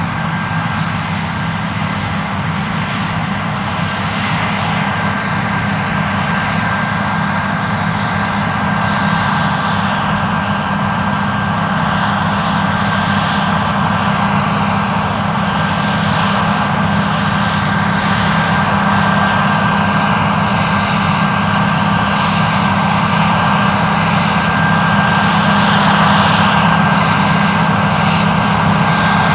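Claas Lexion 770 TT tracked combine harvester running under load while cutting wheat. Its engine and threshing machinery make a steady drone with a constant high whine, growing slowly louder as the machine comes closer.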